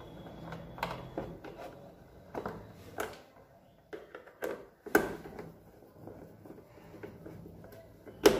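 Hands refitting parts by a fridge's compressor, such as setting the water tray back in place, making scattered knocks and clicks. The loudest comes about five seconds in, and a sharp one near the end.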